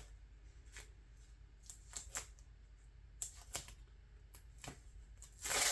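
Duct tape being rolled tightly onto itself, giving short sticky crackles and clicks, then a louder rasping noise lasting about half a second near the end.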